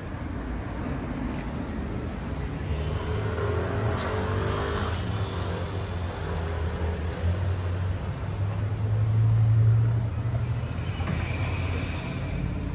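Engine running with a steady low hum that swells louder for a moment about nine to ten seconds in.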